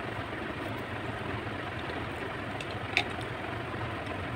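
Steady low hum and rumble of a running motor. About three seconds in, a plastic soft-drink bottle gives one sharp click as it is handled for a drink.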